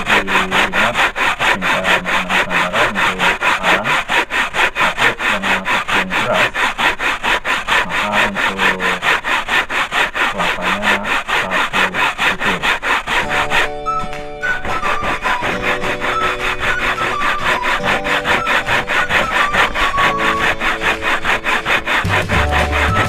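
Coconut flesh being grated by hand on a flat metal grater: steady, rhythmic scraping strokes, about three or four a second. Background music comes in a little past halfway, under the scraping.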